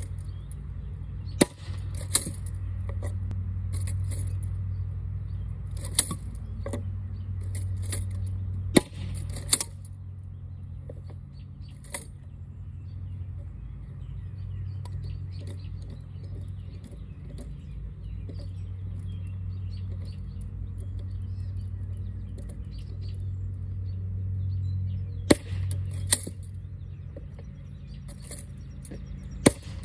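Blank airsoft shower shells firing in a homemade M3 anti-tank gun lookalike: five sharp cracks spread across the stretch, some followed within a second by a smaller crack. In between comes metallic clicking and clattering as the breech is worked and shells are handled.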